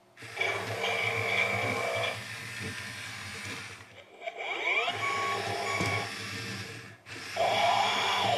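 WowWee RoboZombie robot toy running, its small motors whirring together with its electronic robotic zombie sound effects, which come in three loud stretches with rising glides in pitch near the middle.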